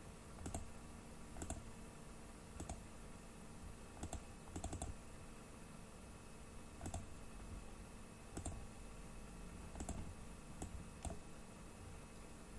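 About a dozen single computer mouse clicks at irregular intervals, two of them close together in the middle, over a faint steady hum.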